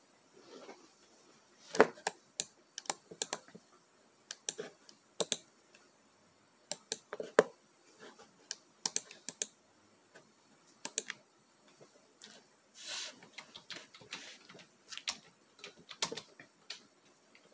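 Scattered, irregular clicks and taps, single and in small clusters, with quiet gaps between them.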